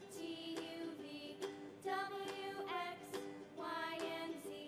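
Soft background music: a light tune with notes struck at an even beat.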